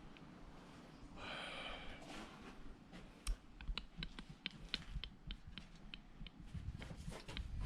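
Faint clicks and taps of small metal engine parts and tools being handled, with a brief scrape about a second in.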